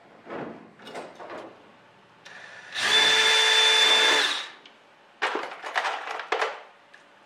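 Cordless drill running steadily for about a second and a half as it drills a hole through the aluminium wing skin into the rib beneath. Before and after it come short clicking and rattling sounds of clecos being handled and set with cleco pliers.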